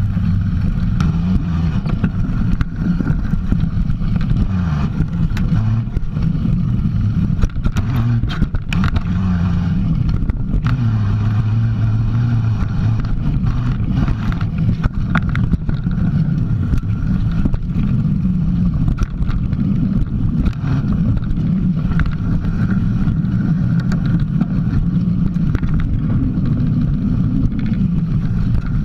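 Mountain bike riding over a dirt trail, heard from a camera mounted on the bike: a steady low rumble from the knobby tyres rolling, rising and falling in pitch with speed, with frequent sharp rattles and knocks from bumps.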